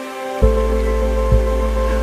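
Background music of sustained soft tones, with a deep bass and a slow beat coming in about half a second in.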